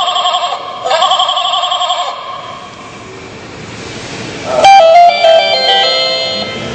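Children's electronic toy organ sounding its electronic tones: two warbling ringtone-like tones, then a click about four and a half seconds in and a short run of stepped electronic notes.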